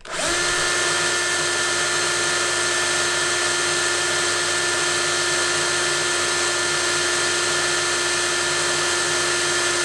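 Cordless drill run up at the trigger, then held at a steady speed with an even motor whine. The chuck is spinning at about 1300 RPM.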